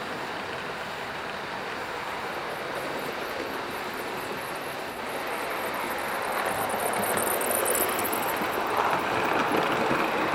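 Model trains running on the layout's track: a steady rumble of wheels on rail and motors, growing louder about six seconds in as a train passes close by, with quick fine clicking.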